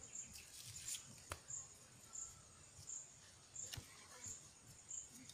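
Faint insect chirping, a short high note repeating steadily about every three-quarters of a second. There are a few sharp light clicks of snail shells handled over a small steel plate, one about a second in and one near four seconds.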